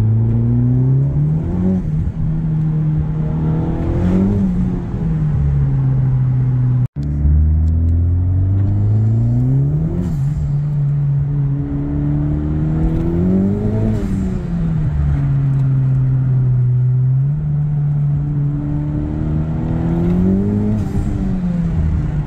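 A 2021 Honda Civic Type R's turbocharged 2.0-litre four-cylinder, heard from inside the cabin, accelerating hard: its pitch climbs, then drops sharply at each gear change, about five pulls in all. The sound breaks off briefly about seven seconds in.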